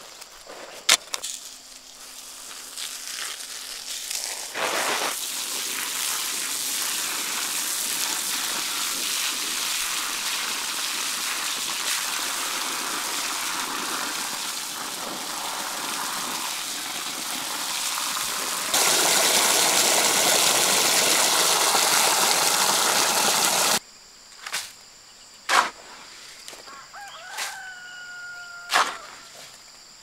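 Water from a garden hose pouring onto a pile of dry sand and cement mix, a steady hiss that gets louder near the middle and cuts off suddenly. Afterwards, a few sharp scraping knocks of a hoe working the mix, and a rooster crowing in the background.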